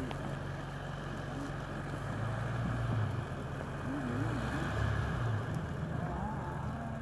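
Dodge Ram pickup's engine running steadily, getting louder for a few seconds in the middle as it is given throttle to work the truck loose on the ice.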